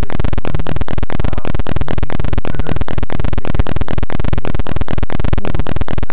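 Loud, harsh digital noise from a corrupted audio track, broken by brief dropouts at an even rhythm of about five a second.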